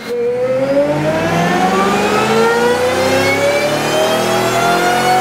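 Supercharged 5.4-litre V8 of a 2011 Shelby GT500 making a full-throttle chassis-dyno pull, its pitch climbing smoothly and steadily in one gear. The engine runs with a smaller 2.5-inch supercharger pulley, a cold air intake and a custom tune fitted.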